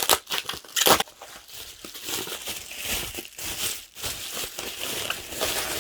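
Packaging crinkling and crackling as it is handled and unwrapped, with two louder sharp crackles in the first second.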